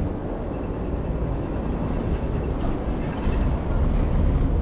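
Steady low rumble of wind buffeting the microphone while cycling through city streets. A faint thin high tone sounds briefly about two seconds in and again at the very end.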